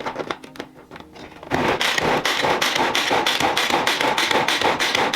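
Rapid rhythmic rasping scrapes from kitchen food preparation, about six strokes a second, starting about a second and a half in after a few light clicks.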